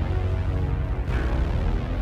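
Music with held notes over a steady low bass.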